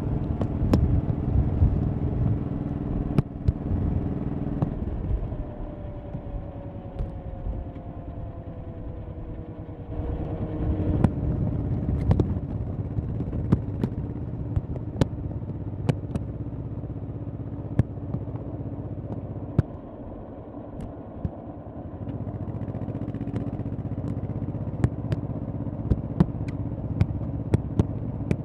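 Honda Shadow V-twin motorcycle engine running while riding. The throttle eases off about five seconds in with the pitch falling, the engine picks up again about ten seconds in, dips briefly near twenty seconds, then steadies. Sharp clicks and knocks come through now and then.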